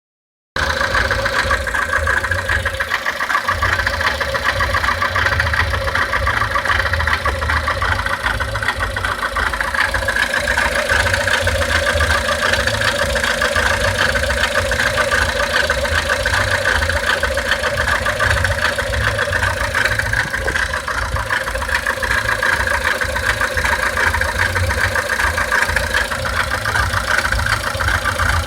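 1999 Honda Civic's four-cylinder engine idling steadily, making a noise that has appeared since its timing belt was replaced.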